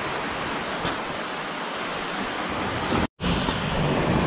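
Surf washing over coral rocks: a steady rushing of waves. It breaks off for an instant about three seconds in, then carries on with more low rumble.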